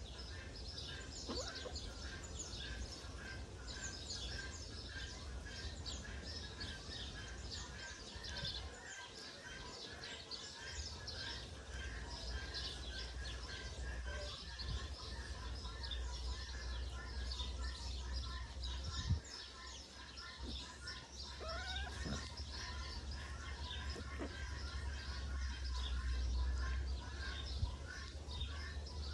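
Many small birds chirping and twittering without a break, over a steady low rumble. One longer rising call stands out about three quarters of the way through.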